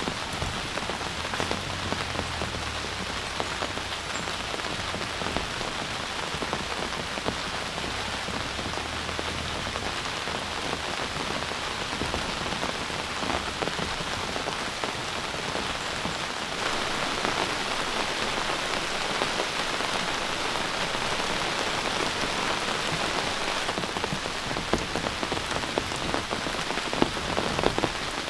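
Heavy rain falling steadily, a dense patter of countless drops, growing somewhat louder about two-thirds of the way through.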